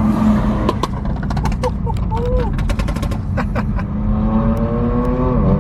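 BMW M4 F82's twin-turbo straight-six running through a straight-piped AWE track exhaust, with a run of sharp crackles and pops in the first half. Near the end the engine note sinks and then drops off sharply.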